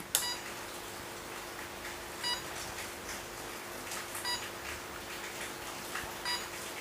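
Luminous inverter board's buzzer giving short high beeps about every two seconds, just after a relay clicks in near the start, with a faint steady hum underneath.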